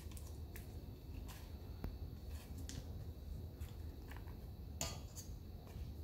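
A knife cutting chunks of butter off its wrapper into a bowl of flour: scattered faint clicks, soft scrapes and wrapper crinkles, one sharper about five seconds in, over a low steady hum.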